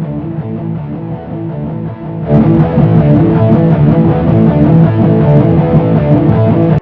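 Soundtrack music with guitar, swelling louder and fuller about two seconds in, then breaking off suddenly at the end.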